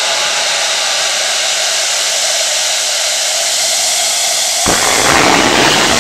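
Steady loud hiss of a stage smoke effect jetting a column of white smoke. A little under five seconds in it turns fuller and slightly louder.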